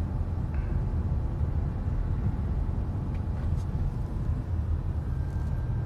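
Steady low rumble of a car in motion, heard from inside the cabin.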